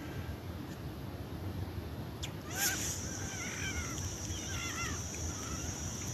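A string of short honk-like squawks, roughly every half second, starting with a click about two and a half seconds in, over a steady low rumble and a thin high whine.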